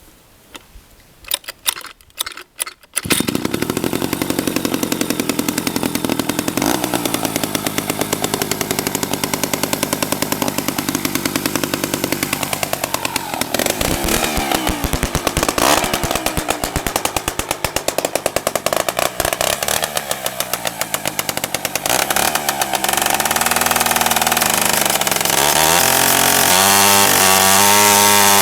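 Freshly restored 1965 Landoni L 98 chainsaw's 98 cc two-stroke engine starting after a few sharp knocks, catching about three seconds in and running, its pitch swinging up and down as the throttle is worked. From about two-thirds through it runs louder, climbing in steps to higher revs.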